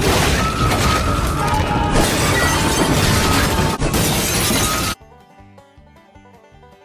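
Loud, dense crashing and shattering noise with music under it, cutting off suddenly about five seconds in. Quiet plucked-string music, banjo-like, follows.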